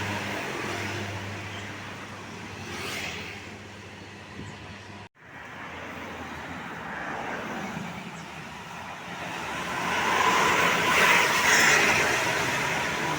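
Tour buses driving past: engine and road noise fades, drops out abruptly for an instant about five seconds in, then swells again as another bus passes.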